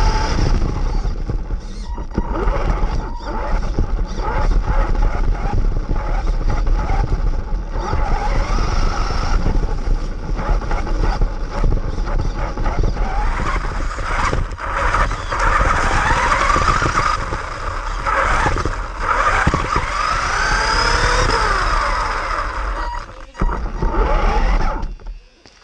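Onboard sound of a fast RC buggy: its motor whines up and down with the throttle over a constant rumble of tyres and chassis on asphalt, grass and paving. The sound drops out briefly twice near the end.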